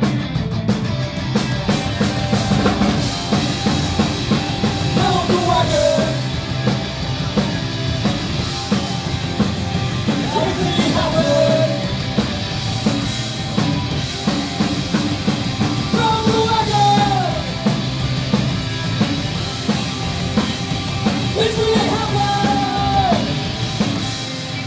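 Live punk rock band playing loud, with electric guitars and a drum kit. A falling glide in pitch recurs about every six seconds.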